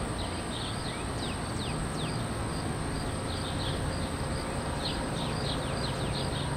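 Outdoor ambience of insects giving a steady high drone and birds chirping, with a few short falling whistled calls. A faint low rumble sits underneath, the distant thunder of an approaching storm.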